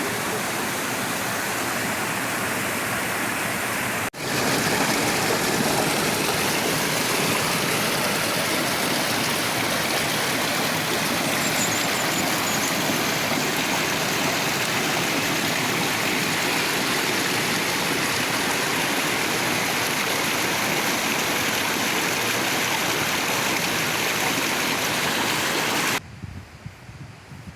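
Steady rush of running water. It breaks off briefly about four seconds in and comes back louder, then cuts off suddenly near the end.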